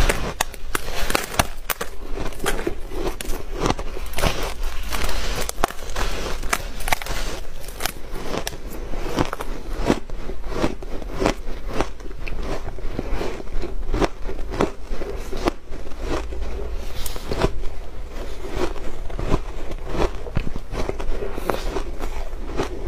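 Crunching and chewing of a crisp, layered refrozen shaved-ice cake between the teeth: a dense, uneven run of sharp crackles and crunches.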